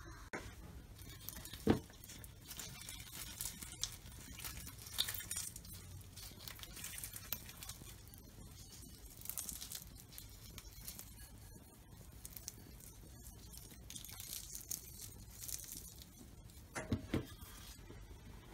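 Crisp, flaky paratha crackling and rustling as hands tear it apart, in several short stretches. A couple of light knocks, one near the start and one near the end.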